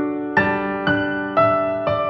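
Background piano music: single notes struck about twice a second, each ringing and fading before the next.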